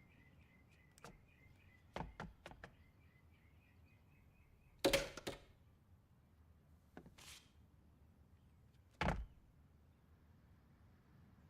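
Film sound effects without dialogue: scattered light knocks and clicks, a loud knock about five seconds in, a short swish about two seconds later and another thump near nine seconds. A faint repeating chirp runs underneath and stops about four and a half seconds in.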